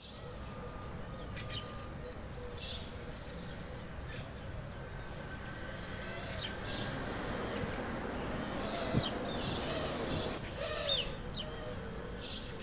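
Morning ambience: scattered bird chirps and coos over a steady background hiss.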